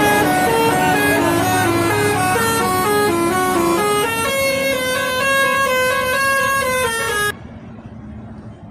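Indonesian bus telolet horn, a set of electric air trumpets, playing a quick melody of stepped notes with several tones sounding together. It stops abruptly about seven seconds in and gives way to much quieter background noise.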